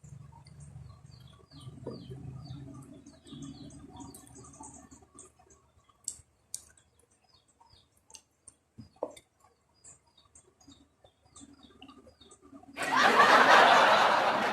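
Faint, short bird chirps and scattered clicks over a low murmur, then about thirteen seconds in a sudden loud rush of noise.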